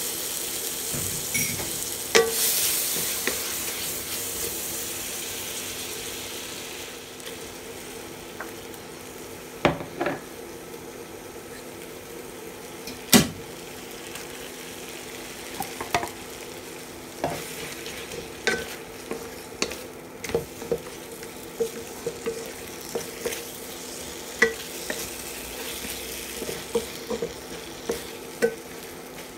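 Tomato gravy sizzling in a nonstick wok, the hiss strongest in the first few seconds and dying down, while a wooden spatula knocks and scrapes stirring tomatoes, spring onions and scrambled eggs, with one sharp knock about 13 seconds in. A steady low hum runs underneath.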